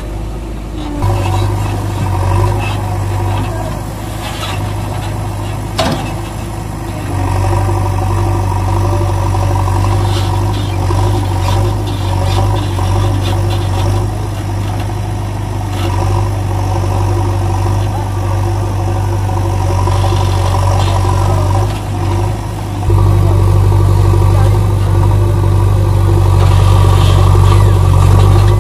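A heavy vehicle's engine running steadily at idle. It steps up in level about a second in, around seven seconds and again around twenty-three seconds in, with a sharp click near six seconds.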